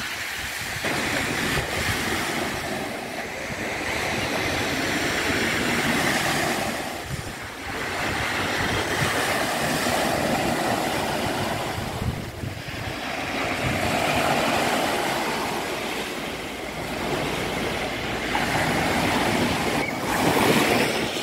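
Small waves washing onto a sandy beach, a steady rush that swells and fades every few seconds, with wind rumbling on the microphone.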